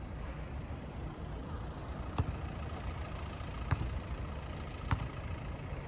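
Steady low outdoor background rumble, with three short sharp clicks spread through the middle of it.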